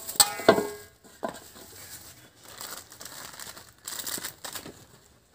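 Plastic and paper shopping wrappings rustling and crinkling in several separate bursts as groceries are unpacked, after a short, loud pitched sound right at the start.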